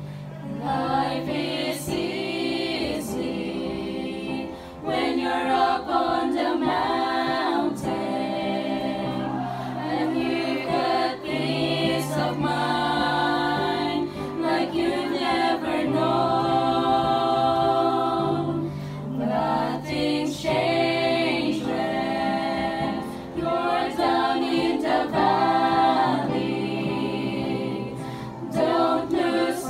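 A group of women singing a song together into one microphone, with piano accompaniment holding low notes underneath.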